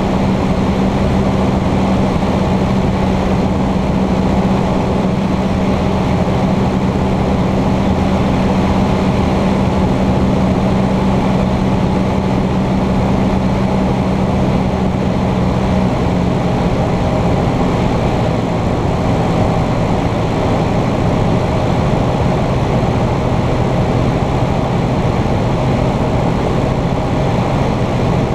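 Cessna 150's Continental O-200 four-cylinder engine and propeller running steadily in flight, heard from inside the cockpit along with wind noise. The engine note shifts slightly about halfway through.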